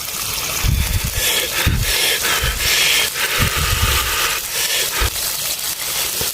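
Close-up chewing of a mouthful of stir-fried wild celery and cured pork, in irregular bouts of noisy crunching with a few dull low thuds.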